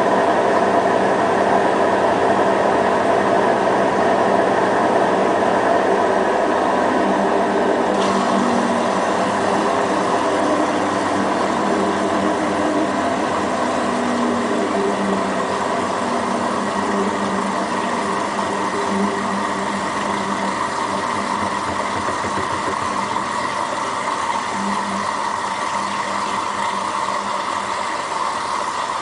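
Electrolux washing machine running its spin cycle: a steady motor and drum hum with several held tones, some of them wandering in pitch, and the overall level easing down gradually.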